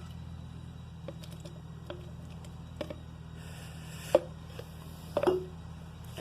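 Scattered light knocks and clicks from handling a stain pot and brush while mixing a powder-pigment wood stain, with two sharper knocks about four and five seconds in and a couple of brief scrapes between them. A steady low hum runs underneath.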